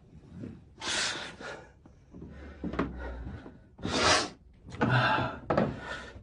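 A man's heavy, rasping breaths and groans, with four loud ones spread through, and a brief knock a little before the middle.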